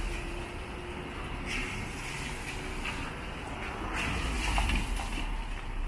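City traffic on a rain-soaked street: cars passing over wet asphalt with a steady tyre hiss and low engine rumble, swelling as a car goes by about four seconds in.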